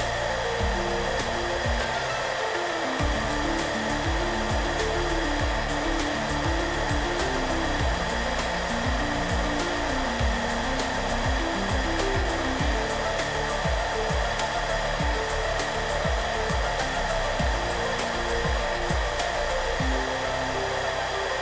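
Hairdryer running steadily, a constant whooshing noise with a faint high whine, mixed with soft background music whose notes move underneath it.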